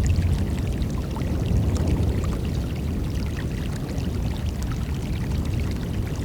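Water sloshing and lapping around a boat hull and dinghy, with many small splashes over a low rumble.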